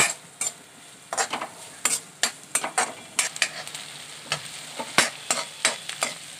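A metal spoon scraping and clinking against a metal kadai as chopped onions are stirred and fried in oil, with a faint sizzle underneath. The strokes come irregularly, two or three a second, with the sharpest clinks at the very start and about five seconds in.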